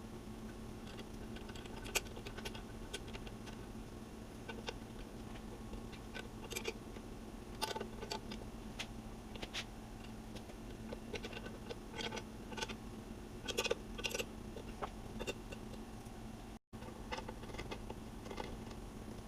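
Scattered light clicks and taps over a steady low hum; the sound cuts out completely for a moment about three-quarters of the way through.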